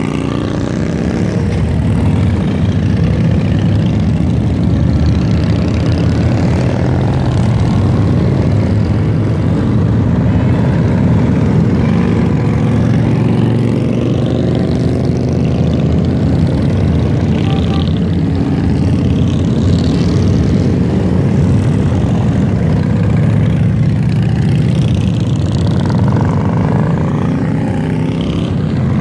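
A long procession of large touring motorcycles riding past, their engines making a loud, continuous rumble, with single bikes' engine notes rising and falling as they go by.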